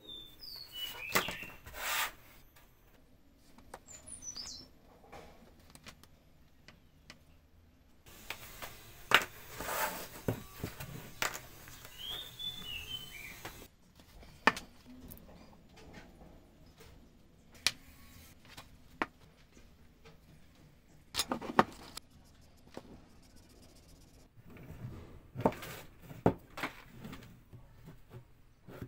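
Small pine toy parts handled and fitted together by hand: scattered sharp wooden clacks and taps, and a stretch of wood rubbing on wood a third of the way in. A few brief bird chirps sound in the background.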